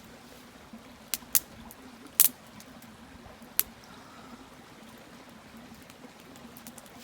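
A few short, sharp clicks, the loudest a little after two seconds in, over a faint steady low hum.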